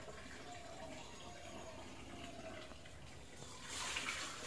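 Faint running water and splashing as clothes are hand-washed at a tap. The water gets louder near the end.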